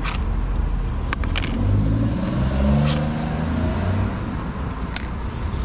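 A motor vehicle driving past: a low engine rumble whose pitch bends as it swells, loudest about halfway through, then eases off, with a few light clicks over it.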